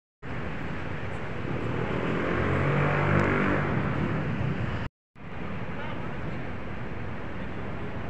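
Outdoor street traffic noise with a motor vehicle's engine hum swelling as it passes, loudest about three seconds in. The sound cuts out abruptly just before five seconds and comes back as a steady traffic hum.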